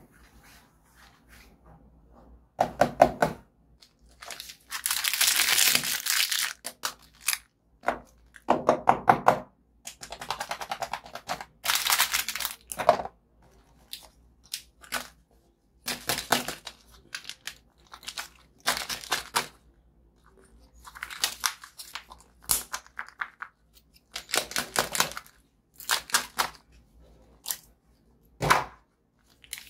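A plastic snack wrapper being torn open and crinkled by hand: a run of separate tearing and rustling bursts, some over a second long, with short crackles between.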